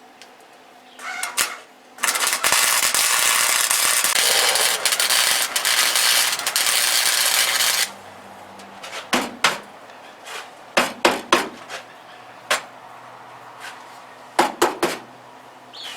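Welding arc crackling steadily for about six seconds as a bead is run on the sheet-metal floor panels, then cutting off suddenly. A handful of sharp clicks and metal knocks follow.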